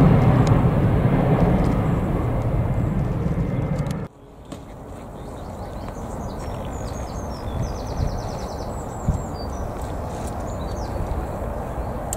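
Jet airliner engine noise after take-off, fading away, then cut off abruptly about four seconds in. A quieter low rumble follows, with a few faint high chirps.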